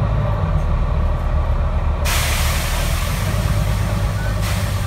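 Low, steady drone of a Volvo B9TL Wright Eclipse Gemini 2 double-decker bus's engine, heard from inside the upper deck. About two seconds in, a loud hiss starts abruptly over it and carries on, with a brief break near the end.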